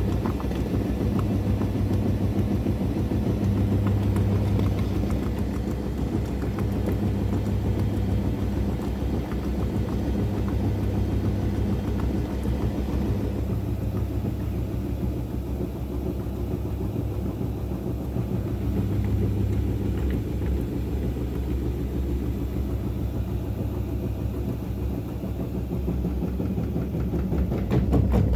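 Daewoo DWD-FT1013 washing machine spinning with an unbalanced load: a steady low rumble with fast rattling, louder and harsher near the end.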